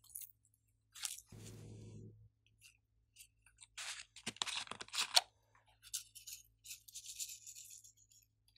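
Crisp crinkling and crackling as sequins are handled over slime and a plastic pumpkin-shaped clay pot is worked with the fingers, with a few sharp clicks near the middle. A short low hum comes in after about a second.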